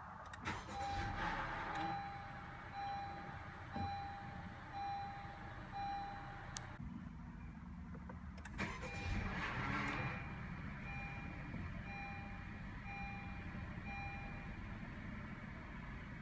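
2016 Honda Civic EX-T's 1.5-litre turbocharged four-cylinder being started twice, each start-up giving a short burst of grinding noise, about half a second in and again about eight and a half seconds in. Each start is followed by a string of evenly spaced dashboard chime beeps, over a steady low rumble.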